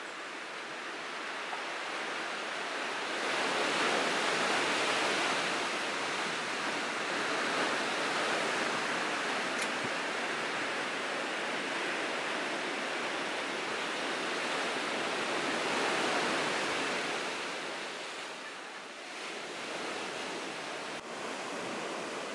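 Ocean surf washing on the beach: a steady rush of waves that swells a few seconds in and falls back briefly near the end.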